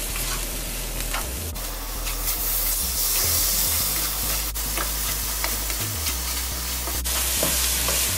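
A spatula stirring dry grated coconut with sugar and spices around a nonstick wok on the heat: a steady scraping rustle, with a few sharp clicks of the spatula against the pan.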